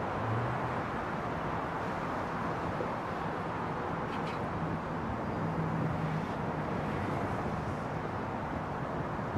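Steady open-air beach ambience: an even rush of noise with a faint low hum underneath, and a brief faint tick about four seconds in.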